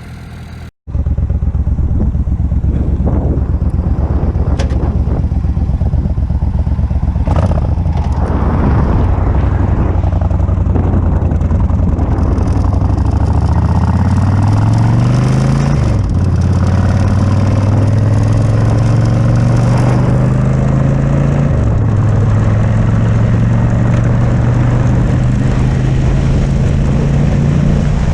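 An engine running, its pitch rising about halfway through, dropping sharply for a moment, then running steadily at a higher speed.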